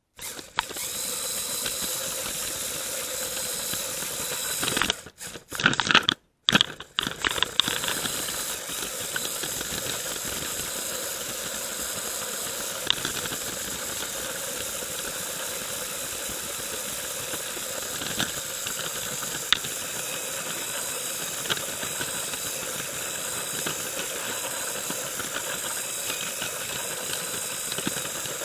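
Lego train's small electric motor and plastic wheels running along plastic track, a steady whirring hiss with a sharp click now and then. About five to seven seconds in come a few loud bumps and rattles.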